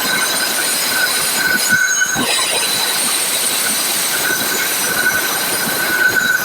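An electric power tool running under load on firebrick, a steady high whine over a gritty rasping noise.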